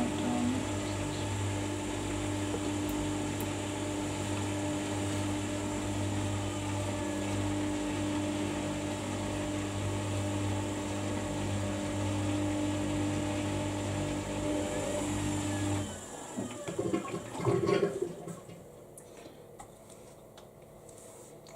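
Samsung EcoBubble washing machine running with a steady motor hum and rushing water, which stops about 16 seconds in. A couple of seconds of loud, irregular knocks and rattles follow, then it goes quiet.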